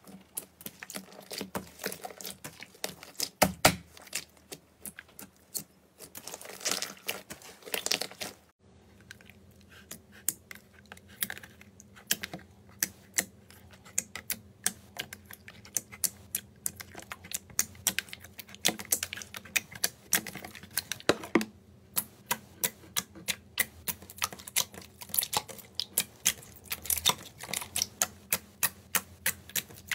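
Hands poking, pressing and kneading slime, making a fast, irregular stream of small sticky clicks and pops as air pockets in the slime burst. There is a short break about nine seconds in.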